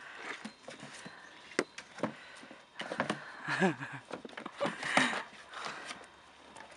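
Wolfdog puppies clambering over a hollow plastic toy: scattered knocks and scrapes of paws and bodies on plastic, with a short vocal sound that bends in pitch about halfway through.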